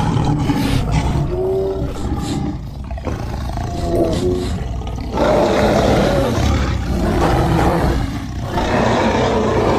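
Loud, rough animal-like roaring and growling, with short pitched cries about a second and a half and four seconds in, and a heavier, continuous roar from about five seconds in.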